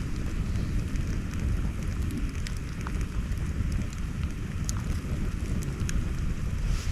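Campfire burning, the wood crackling with sharp pops every second or so over a steady low rumble.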